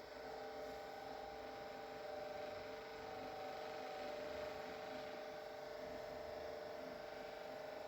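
Faint steady hum with several held tones, the background drone of a small room; no cracks or knocks stand out.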